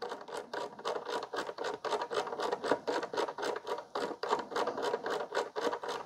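Rotary selector dial on an OXO Brew conical burr coffee grinder being turned steadily, clicking through its detents in a quick run of small clicks, several a second, as the grams setting counts up.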